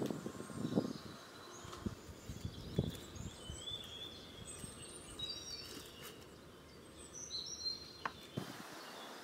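Birds chirping and twittering. A few brief rustles and snaps of dry twigs are heard as they are handled and laid into a small fire pit.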